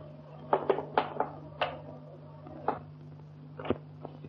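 About nine light, irregular clicks and knocks of small objects being handled on a dresser, most of them bunched in the first two seconds, over the steady hum of an early sound-film track.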